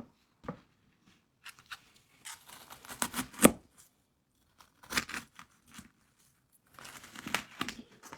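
Crisp crackling crunches of crispy fried noodles being bitten and broken, in several short bursts with pauses between, the loudest about three and a half seconds in.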